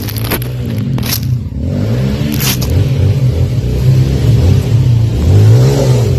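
Dirt bike engine revving up and down in repeated bursts, getting louder toward the end. In the first couple of seconds there are a few sharp scrapes and cracks from brush against the bike.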